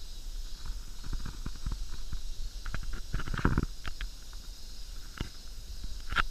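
Footsteps on a dirt path and small clicks and knocks from a handheld camera on the move, the loudest about halfway through and another sharp one near the end, over a steady low wind rumble on the microphone.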